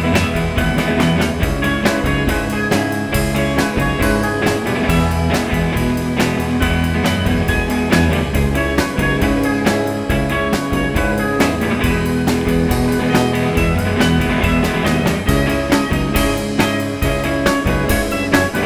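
Rock band playing psychedelic rock, with electric guitar over a steady drum-kit beat.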